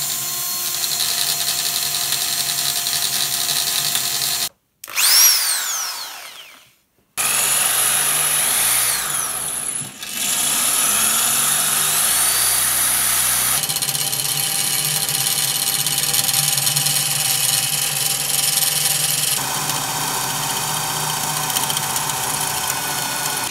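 Electric drill drilling out a stripped screw in an Apple eMac's case. It runs steadily, stops about four seconds in, gives a short rev with a rising and falling whine, then runs again for the rest of the time, its pitch shifting as the bit bites into the screw.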